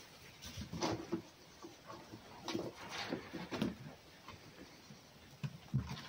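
A fox and a cat scuffling about on straw: a few short, irregular bumps and rustles, loudest about a second in and around three seconds in.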